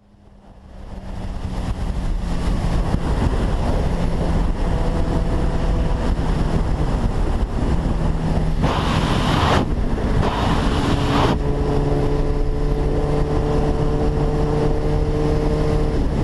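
Motorcycle riding at speed: steady wind rush on the camera microphone over the engine's running note, fading in over the first couple of seconds. Two short bursts of hiss come about nine and ten and a half seconds in, and the engine note then settles at a different pitch.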